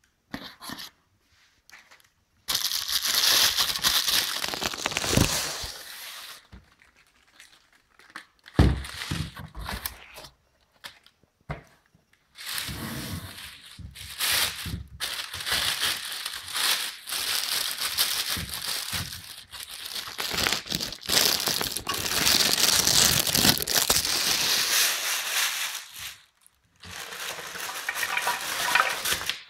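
Thin plastic bag crinkling and rustling in bursts with short pauses as it is handled and pulled off a newly unboxed lamp. A single short thump comes about nine seconds in.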